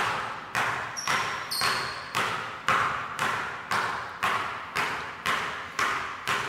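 Two basketballs being dribbled on a hardwood gym floor, a steady rhythm of just under two bounces a second, each bounce echoing in the hall. A brief high-pitched squeak comes about a second in.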